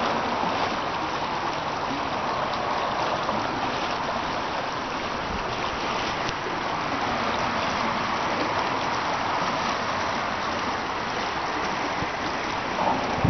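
Steady rush of a small river flowing fast over a shallow riffle just below the bridge.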